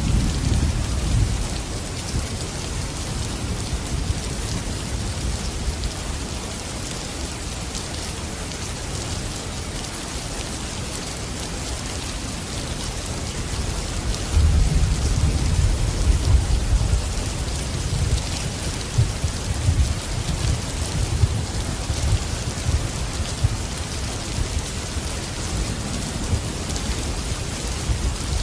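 Steady heavy rain falling as an even hiss, with low rolling thunder rumbling at the start and again from about halfway through for several seconds.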